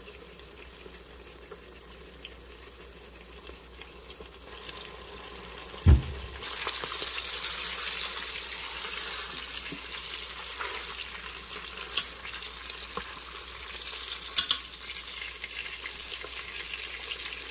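Chicken breasts sizzling in hot butter and olive oil in an Instant Pot's inner pot on the sauté setting. The sizzle grows louder about six seconds in, right after a single sharp knock, and there are a few clicks of metal tongs against the pot as the breasts are turned.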